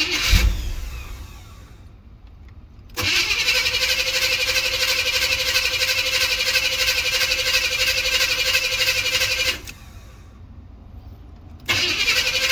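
1984 Chevrolet Monte Carlo engine being cold-started. A loud thud at the start, then a steady engine sound with a constant whine runs for about six seconds and cuts off. It starts again near the end.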